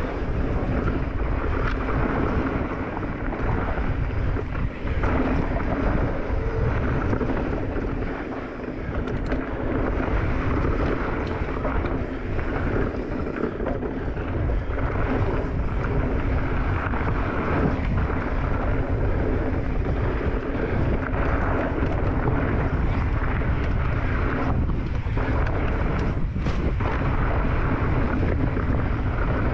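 Mountain bike riding fast down a dirt trail: steady wind rushing over the microphone mixed with the rumble of knobby tyres rolling on hardpacked dirt.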